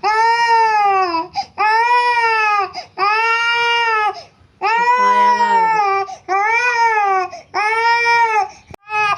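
A baby crying hard in a series of about seven loud, arching wails, each around a second long with a short catch of breath between, as it is rubbed and kneaded during a traditional massage.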